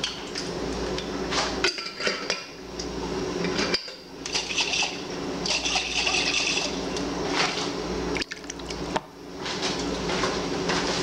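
A spoon working thick tomato sauce into macaroni and ground beef, giving wet squelches, scrapes and clinks against the vessel. A steady low hum runs underneath.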